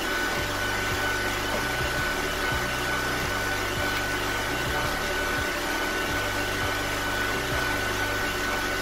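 Hanabishi stand mixer running steadily at middle speed, its wire whisk beating egg whites in a steel bowl, with a constant high whine over the motor hum.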